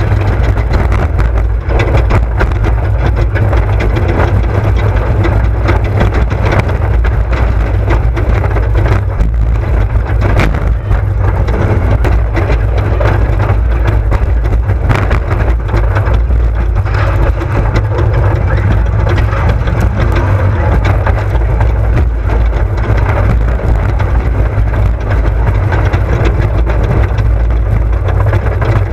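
Off-road race buggy's engine running steadily with a heavy low rumble, under a constant clatter of rattling knocks.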